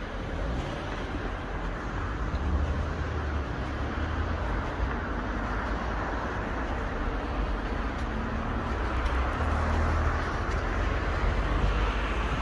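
Road traffic: a steady wash of tyre and engine noise from cars on a road, with a low rumble. It swells slightly about two seconds in and again towards the end.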